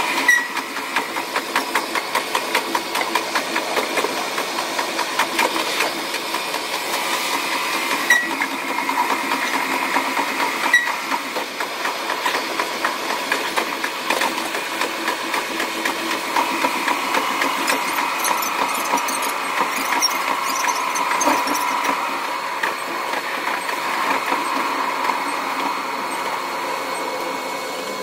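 Cab audio of a KiHa 185 series diesel railcar running along the line, played at six times speed, so its engine sound and the rail-joint clicks run together into a fast, steady clatter.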